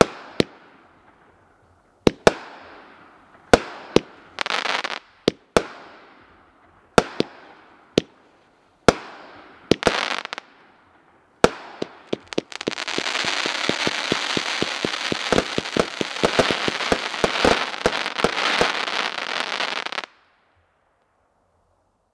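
Rock Your World multi-shot consumer firework cake firing: sharp single reports every second or so, each trailing off in an echo, some followed by a short burst of crackling. About halfway through it turns into a dense, continuous crackling for about seven seconds, then cuts off suddenly.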